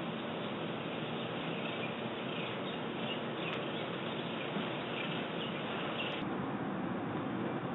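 Steady outdoor background hiss picked up by a doorbell security camera's microphone, with faint, short, high chirps scattered through the middle.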